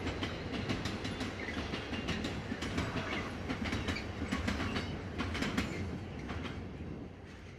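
A train running past on the main line, its wheels clicking over the rail joints over a steady rumble, the sound fading away near the end.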